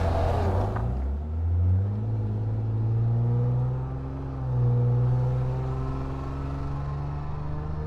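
Exhaust of a 2010 Lexus IS250 AWD's 2.5-litre V6, running through a full aftermarket exhaust with valved mufflers. The revs drop at under a second in, then the engine pulls at low revs with a deep drone that rises slowly.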